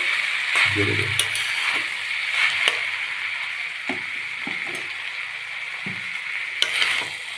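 Cauliflower, chili and potato filling sizzling in a pan as it is stirred together, with a steady hiss and scattered scrapes and knocks of the stirring against the pan.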